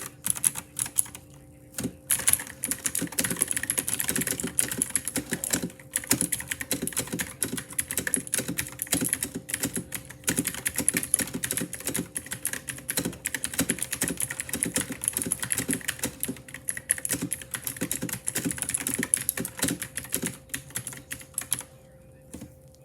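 Typing on a cheap computer keyboard: a few scattered keystrokes at first, then about two seconds in a fast, continuous run of key clicks that stops just before the end.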